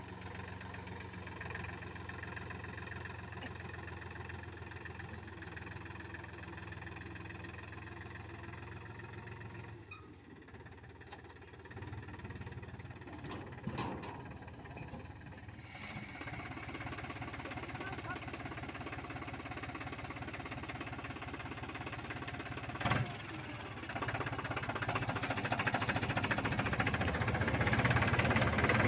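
Powertrac Euro tractor's diesel engine running steadily while it tows a paddy thresher, with a couple of sharp knocks. Near the end a louder, building rush of machine noise comes in as the tractor-driven paddy thresher runs and threshes the paddy.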